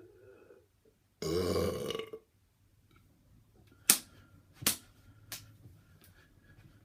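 A man's loud belch, one pitched burst lasting about a second. A couple of seconds later come four sharp clicks, the first the loudest.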